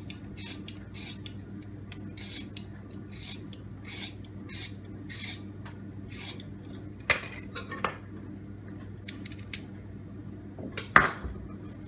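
Vegetable peeler scraping down a carrot in quick repeated strokes, about two to three a second. Two louder sharp knocks come about seven seconds in and again near the end.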